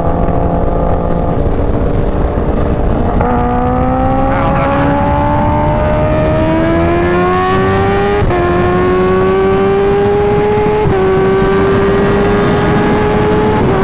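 Kawasaki Ninja H2's supercharged inline-four with an aftermarket Competition Werkes exhaust, accelerating hard under wind rush. The engine note holds steady at first, then climbs in pitch from about three seconds in, dipping briefly at two upshifts before climbing again.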